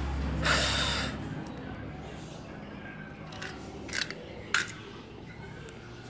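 A short hiss-like rush near the start, then a few sharp, separate clicks and taps.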